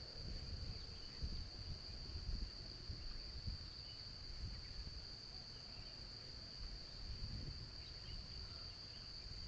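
A steady, unbroken high-pitched drone of insects over a low, uneven background rumble.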